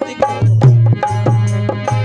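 Hindi devotional bhajan music in an instrumental passage: a steady rhythm of hand-drum strokes over a deep bass note held for about a second and a half.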